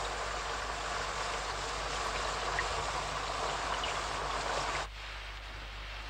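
Rain sound effect: a steady hiss of heavy rain that drops sharply to a quieter hiss about five seconds in.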